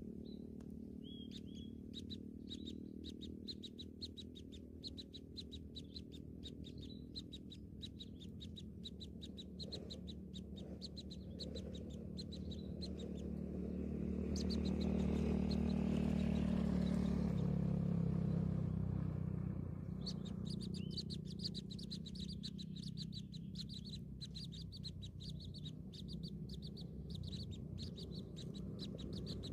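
Nestlings cheeping, a fast, even run of thin high peeps, several a second. Past the middle a louder low rumbling noise swells up for about five seconds while the peeping stops, then the peeping starts again.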